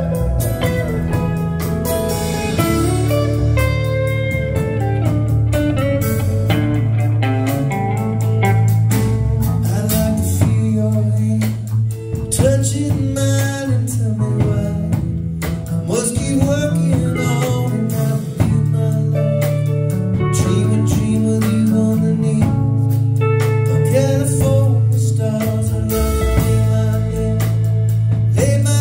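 Live band playing a country-rock tune at an even tempo: electric bass, electric and acoustic guitars and a drum kit.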